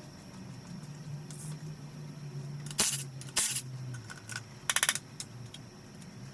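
Hand tools working on a bare RB25DET engine block during piston removal: two loud sharp metallic noises about three seconds in, then a quick run of clicks a little later, over a low steady hum.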